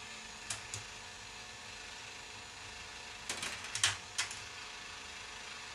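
Plastic balls clicking and clacking along the track of a revolving K'nex ball machine: two light clicks about half a second in, then a quick run of clicks and knocks a little past three seconds in. A steady hiss lies underneath.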